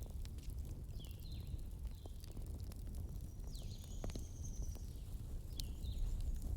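Wood fire crackling: a steady low rumble with scattered sharp pops, and several short high-pitched whistles that fall in pitch, spaced through it.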